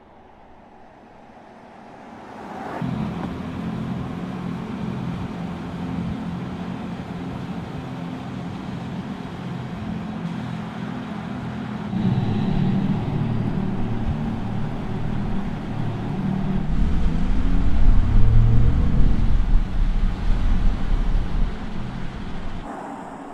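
Artificial AMG driving sound of a Mercedes-AMG EQS 53 electric car: a layered synthetic hum that comes in about two and a half seconds in, grows louder about halfway through, then climbs in pitch and swells to its loudest as the car accelerates, before dropping away near the end.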